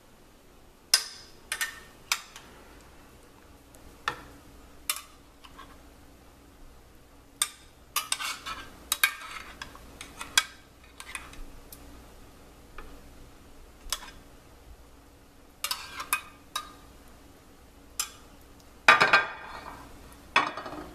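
A metal fork clinking and scraping against a glass baking dish as raw marinated chicken pieces are pushed into a nonstick frying pan, in scattered sharp clinks and short clatters. A louder run of clatter comes about nineteen seconds in.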